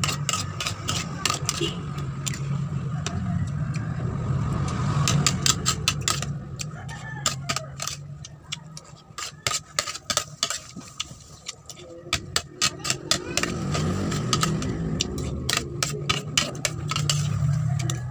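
Close-up mouth sounds of eating noodles: chewing and wet lip-smacking, heard as many quick sharp clicks, over a steady low hum.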